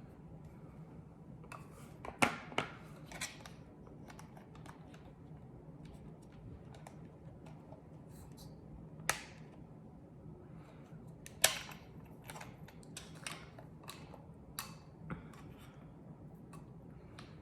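Scattered sharp plastic clicks and handling noises as a phone cable is fitted to the DJI Mini 2's remote controller, the loudest clicks about two seconds in, near the middle and a little after, over a low steady hum.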